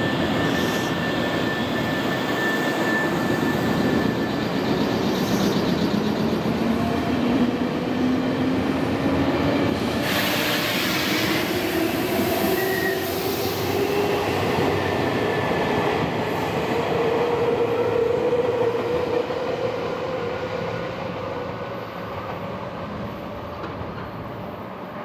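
Nankai limited express Southern electric train pulling away, its traction motors whining steadily up in pitch as it gathers speed over running noise from wheels on rails. A short hiss comes about ten seconds in, and the sound fades near the end as the train draws off.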